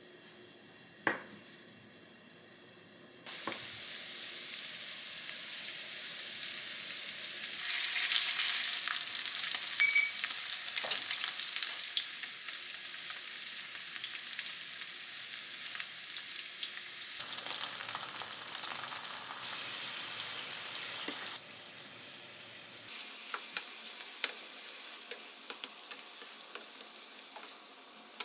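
Food frying in a pan: a steady sizzle with crackles, starting about three seconds in after a single knock, and growing louder or softer at several abrupt cuts.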